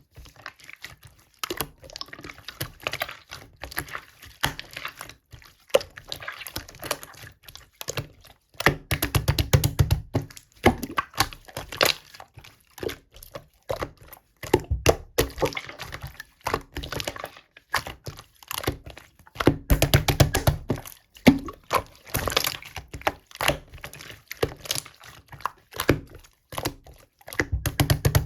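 Slime being squished, pressed and stretched by hand, making a steady stream of wet clicks and pops. Several spells of faster, heavier popping with low thumps come and go.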